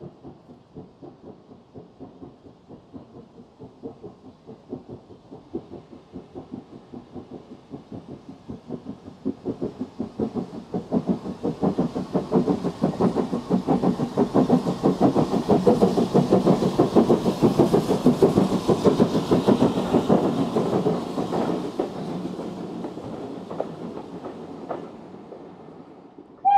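A Kitson-built steam tank locomotive working past with a steady rhythm of exhaust beats. The beats grow from faint to loud, are loudest about two-thirds of the way through, and fade away near the end.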